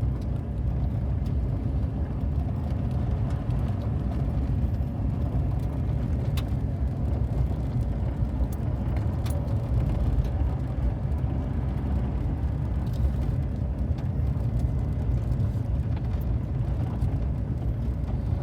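Steady low rumble of a car being driven, with a few faint clicks.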